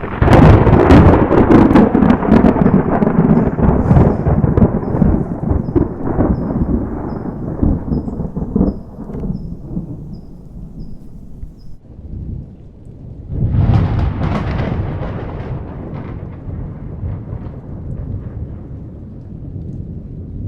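Thunder: a sudden crackling clap at the start that rolls into a long rumble and slowly fades, then a second peal about thirteen seconds in that rumbles away.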